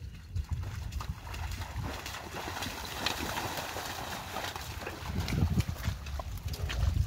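Water buffalo cart loaded with rice coming along a muddy track: the buffaloes' hooves plodding in the mud, with scattered clicks and knocks from the cart, over a steady low rumble.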